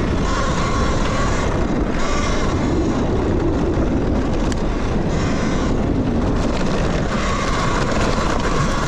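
Talaria Sting electric dirt bike being ridden on a trail: a thin high motor whine over heavy wind rumble on the microphone. The whine fades out in the middle and comes back near the end.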